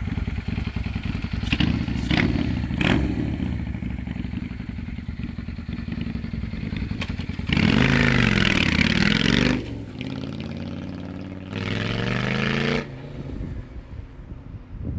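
Honda Steed bobber's V-twin engine idling, with three quick throttle blips early on, then two loud revs rising and falling in pitch as the motorcycle rides off. The sound fades near the end as it moves away.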